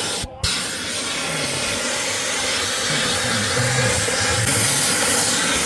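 Snap-on Blue Point shop vacuum running steadily, vacuuming dirt out of a car's floor, with a brief break just after it starts.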